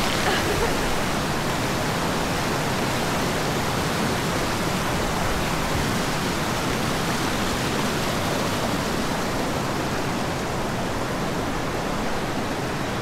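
Steady rush of creek water pouring over a small rock cascade, growing a little softer near the end.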